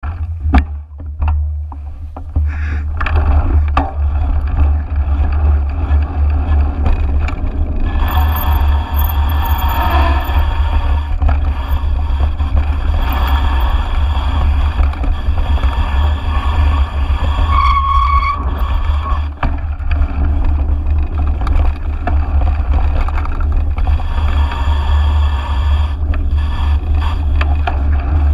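Mountain bike riding fast down a dirt trail, heard through a GoPro: steady wind rumble on the microphone with the rattle and knocks of the bike over rough ground. There are a few sharp knocks in the first couple of seconds as the ride gets going.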